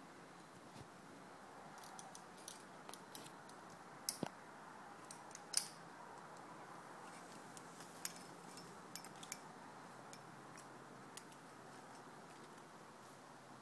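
Metal climbing hardware, carabiners and quickdraws, clinking in a scatter of sharp metallic clicks, loudest about four and five and a half seconds in.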